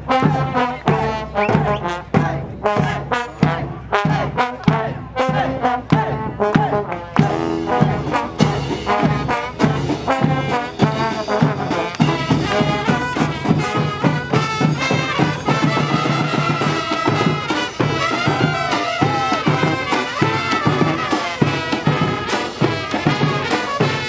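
Brass band playing up-tempo street music: trombones, trumpets and sousaphone over marching snare, bass and tenor drums. The drumming gets busier about eight seconds in.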